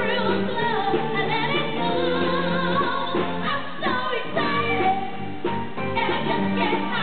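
Live band playing a song: several singers, women and a man, over drums and keyboard.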